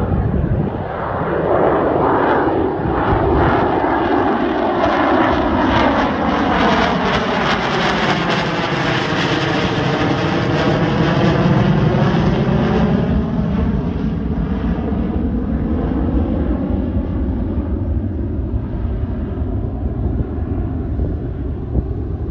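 Northrop B-2 Spirit stealth bomber's four turbofan engines in a low flyby: a continuous jet rush that builds, is loudest about halfway through as the bomber passes overhead, then slowly fades as it flies away. As it passes, the sound has a sweeping, phasing quality, dipping and then rising again.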